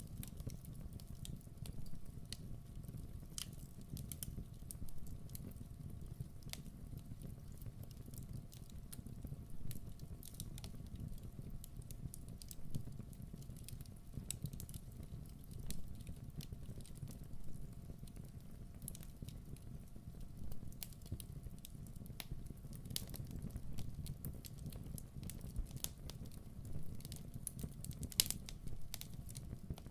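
Wood fire burning in a fireplace, crackling with irregular sharp pops and snaps over a steady low rush of the flames.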